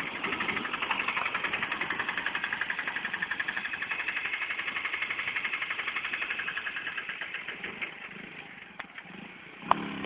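Small motorcycle engine running with an even, rapid pulsing, which fades off about eight seconds in. A single sharp click near the end.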